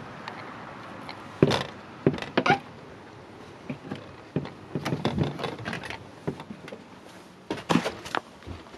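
Scattered knocks and thumps, a few clustered together, as someone steps up into a truck camper through its entry door and moves about on the floor inside.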